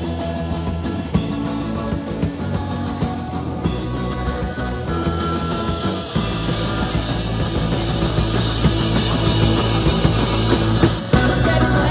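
Live rock band playing an instrumental passage: electric guitars, bass guitar and drums, with no singing, growing a little louder about halfway through.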